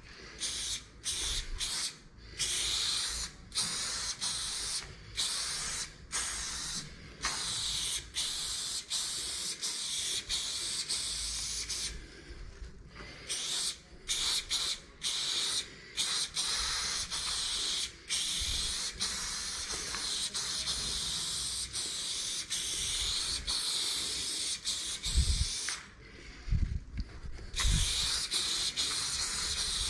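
Aerosol spray paint can hissing as paint is sprayed onto a wall. It comes in short bursts with brief stops at first, then in longer steady sprays. A few low thumps come near the end.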